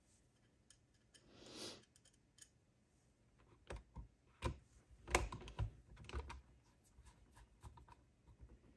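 Faint clicks and taps of a hand screwdriver turning small steel screws into a plastic climate control unit, with a short scrape about one and a half seconds in.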